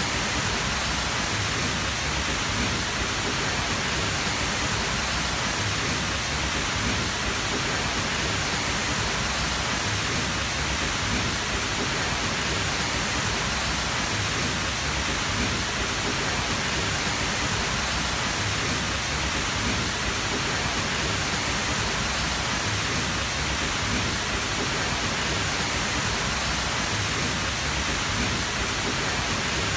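Tall waterfall's water rushing and crashing in a steady, unbroken roar of noise, close to the microphone.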